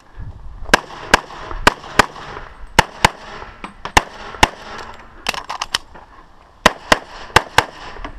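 An EAA/Tanfoglio Witness Elite Match pistol in .40 S&W firing a rapid string of about sixteen shots, mostly in quick pairs, with short pauses between groups as the shooter moves between targets.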